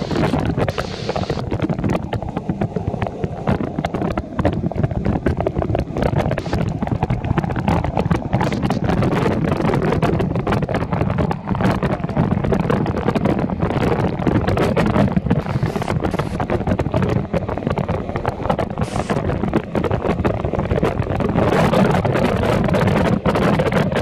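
Waterfall pouring down right over the camera: a loud, steady rush of falling water, with many drops striking the microphone. The rush grows fuller and brighter near the end.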